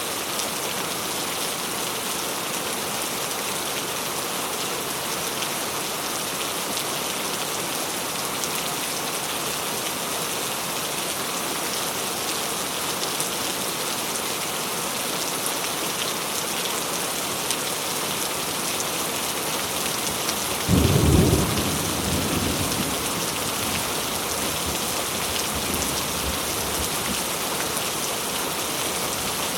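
Steady heavy rain falling, with one low rumble of thunder about two-thirds of the way through that swells suddenly and fades over a couple of seconds.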